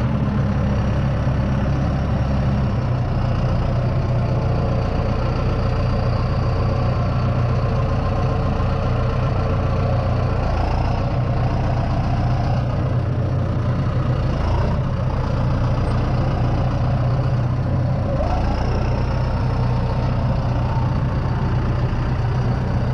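Heavy engine of the log-handling machine running steadily, its low note shifting slightly a few times as the machine works logs onto the sawmill's log deck.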